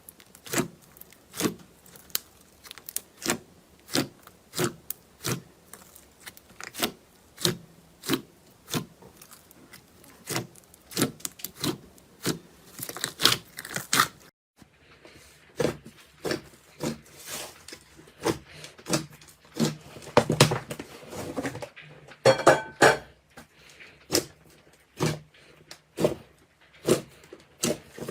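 Slime being pressed and squeezed by hand close to the microphone, giving a run of sharp pops and clicks, about one or two a second, with denser crackling stretches in the middle.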